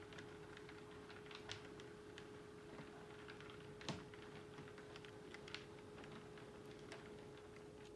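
Model train rolling slowly along the layout track, its wheels clicking faintly and irregularly over rail joints and turnouts, several clicks a second, with one louder click near the middle. A steady faint hum runs underneath.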